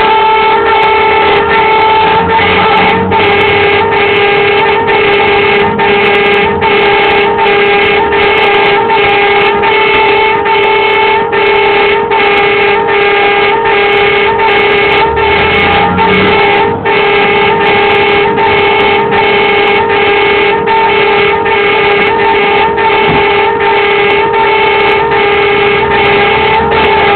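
Tow truck's emergency warning siren, one steady high tone pulsing on and off about three times every two seconds without a break, warning stopped traffic to make way.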